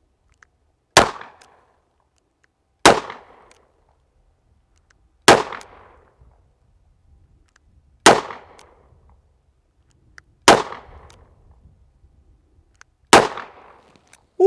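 Six .44 Magnum shots from a Taurus M44 revolver fired double action, spaced about two to three seconds apart, each with a short echo after it. All six rounds go off, with no light primer strikes.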